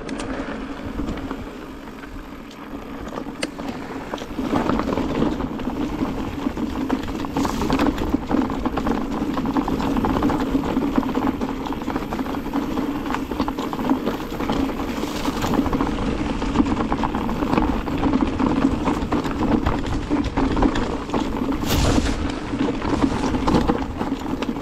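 Mountain bike rolling along a dirt trail: tyres running over earth, leaves and stones, with a steady rolling noise and many small knocks and rattles from the bike.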